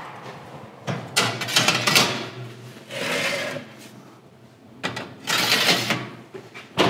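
Metal baking trays sliding onto oven racks, with metal-on-metal scraping and clattering in several spells.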